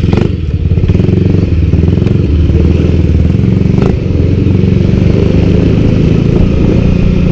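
Motor scooter engine running steadily while riding along a street, heard from the handlebars, with a couple of brief knocks.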